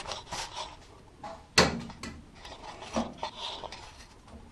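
Steel repair panel being handled and offered up against a classic Mini's boot floor: sheet metal rubbing and scraping, with one sharp knock about one and a half seconds in and a lighter knock near three seconds.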